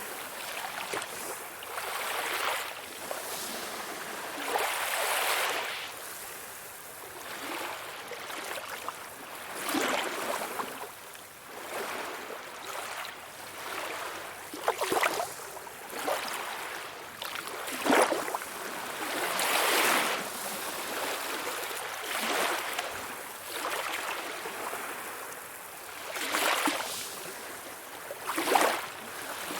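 Small, calm sea waves lapping and splashing, swelling every two to three seconds, with a few sharper splashes among them.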